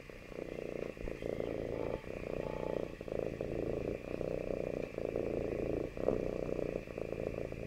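Domestic cat purring: a steady rumble of fast pulses that swells and dips about once a second.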